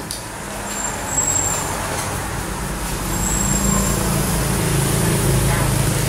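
Motorbike engine running as it comes along the road and passes close by, growing louder over the seconds. Two brief high squeaks sound about a second in and again around three and a half seconds.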